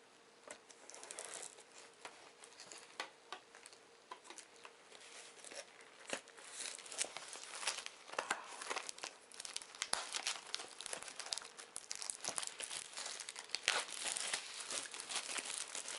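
Plastic shrink-wrap on a sealed trading-card booster box crinkling and tearing as it is pulled off, in irregular crackles that start sparse and grow busier and louder about halfway through.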